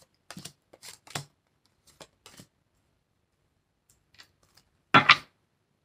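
Tarot cards being shuffled by hand and dealt onto a wooden table: a string of short papery swishes and taps, then one louder burst of card noise about five seconds in.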